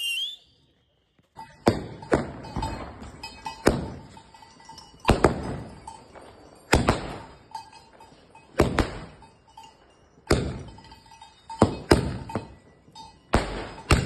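Diwali firecrackers firing: about ten sharp bangs, one every one and a half to two seconds, each with a short ringing tail. A brief shrill whistle at the very start.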